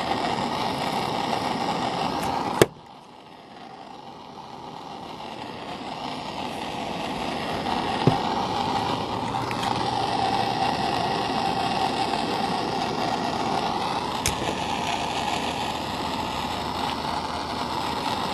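Soldering torch burning with a steady hiss while it heats a brass fitting for sweat-soldering. A sharp click about two and a half seconds in, after which the sound drops and slowly builds back, with a couple of lighter clicks later.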